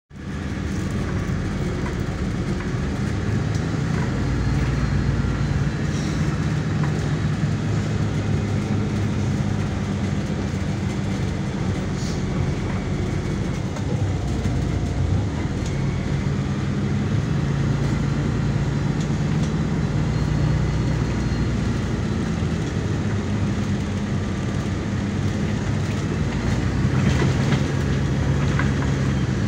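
MAZ-103 city bus running along the road, heard from inside the passenger cabin: a steady engine hum over road rumble, with a few faint rattles.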